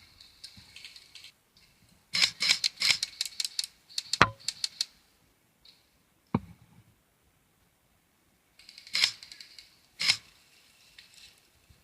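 Airsoft guns firing: quick runs of sharp mechanical clicks from about two seconds in to about five seconds in, a single sharp shot at about six and a half seconds, and two more short bursts near the end.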